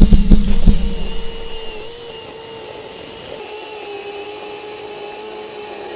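Greenworks 40-volt cordless electric chainsaw running, its motor and chain giving a steady high whine. A few heavy knocks come in the first second or so, then it runs on evenly.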